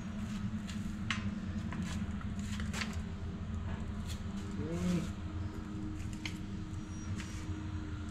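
Light metal clicks and taps from handling UTV coil-over shock springs and parts, scattered irregularly over a steady low hum, with a brief squeak about five seconds in.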